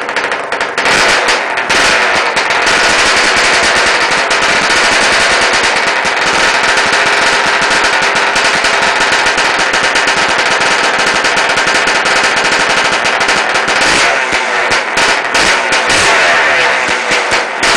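1983 Yamaha IT250's single-cylinder two-stroke engine running hard with a loud, rapid crackle, freshly rebuilt with a new piston and rings. The revs are held steady through most of it, with uneven throttle blips near the start and again near the end.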